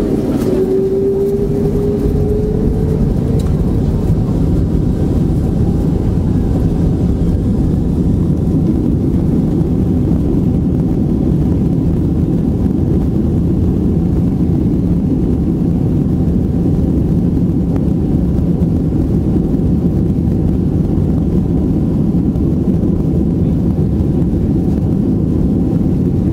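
Boeing 767-300ER jet engines heard from inside the cabin during the takeoff roll: a whine rises over the first few seconds as the engines spool up, then the engine noise stays loud and steady.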